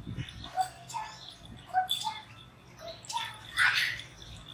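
Shiba Inu puppy whimpering in a string of short, high squeaks, with a louder, rougher cry about three and a half seconds in.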